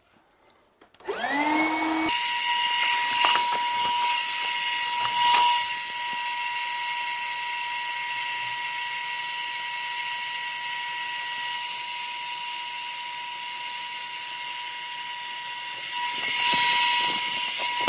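Marlin electric boat pump starting about a second in, its whine rising as the motor spins up, then running steadily with a high whine and rushing air as it inflates the second air compartment of a PVC inflatable boat. Rustling of the boat's tube being handled near the end.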